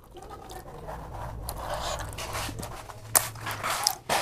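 Close rustling and rubbing of clothing against a clip-on microphone as the wearer shifts her body, with a low rumble underneath and two sharp clicks, one about three seconds in and one near the end.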